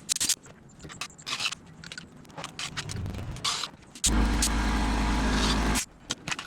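Hand work on small metal parts: scattered clicks and scrapes. About four seconds in, a small motor runs with a steady whir and low hum for under two seconds, then cuts off suddenly.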